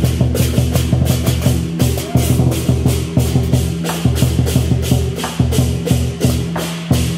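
Percussion music with a fast steady beat, about four sharp hits a second, over a low held tone.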